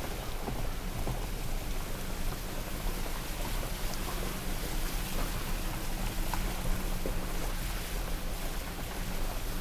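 Vehicle on the move: steady engine hum and road noise, heard from inside the car.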